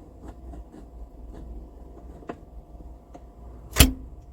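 Scattered faint clicks and one sharp knock near the end, over a steady low hum.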